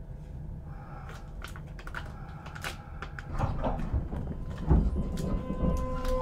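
Cabin sounds of a Kintetsu 5200 series train standing at a station: scattered clicks and knocks and a few low thumps over a low hum. Near the end a steady tone starts.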